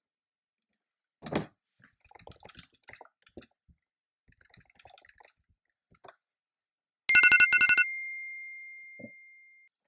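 A thump and scattered light clicks and taps, then about seven seconds in a timer alarm goes off: a quick run of high beeps ending in one held tone that fades away over about two seconds. It marks the end of a 25-minute pomodoro work session.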